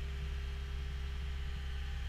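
Caterpillar 279D compact track loader's diesel engine idling, a steady low drone heard from inside the cab.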